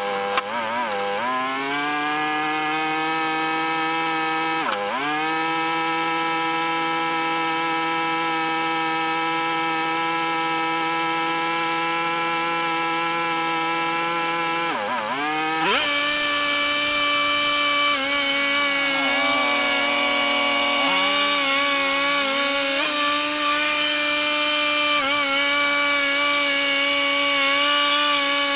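Two-stroke chainsaw running at high revs, sawing pine. Its revs dip briefly near the start, about five seconds in and again about fifteen seconds in. After that it runs a little lower with more rasp, as if bearing harder into the wood.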